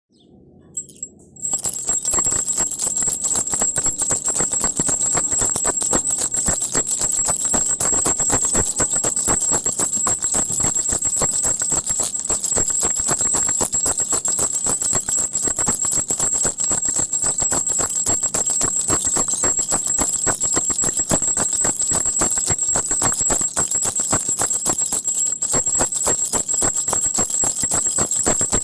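A crocodile baby rattle shaken continuously: a dense, rapid clatter with a steady high jingling ring, starting about a second and a half in after a couple of soft clicks.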